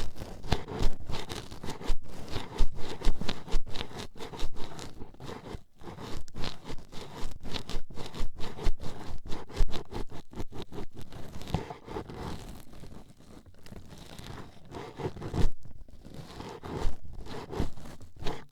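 Toothpicks poking and scratching rapidly at an ASMR ear microphone: a dense, irregular run of crackly scratching jabs, a little lighter for a few seconds past the middle.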